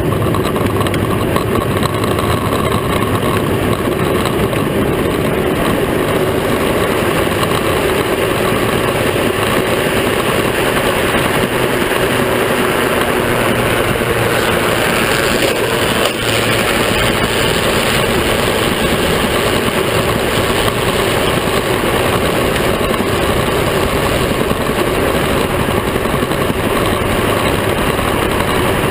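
Modified Power Wheels ride-on racing car running flat out, heard from a camera mounted on the car: a steady rush of drivetrain, tyre and wind noise.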